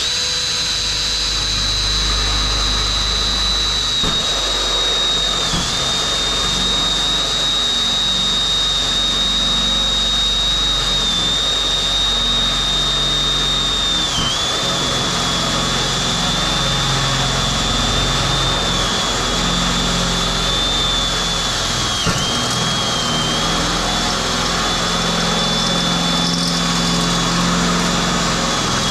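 Electric drill turning a step drill bit through 1.2 mm steel plate: a steady high motor whine that dips briefly in pitch now and then.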